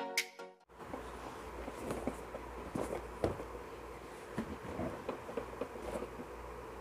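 The end of an intro music jingle, cut off abruptly just under a second in, then room tone with a low hum and faint scattered taps and rustles of hands handling a cardboard microphone box on a table.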